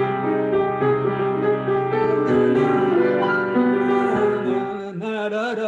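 Grand piano played: a slow passage of held chords with a melody moving over them.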